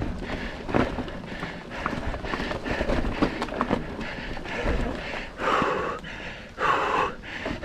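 Mountain bike clattering over a rough, muddy trail: a continuous run of knocks and rattles, with two short hissing bursts near the end.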